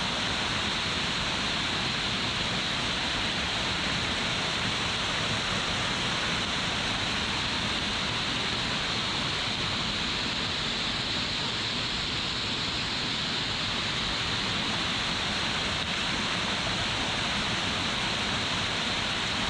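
Waterfall rushing: a steady, even roar of falling water with no change in level.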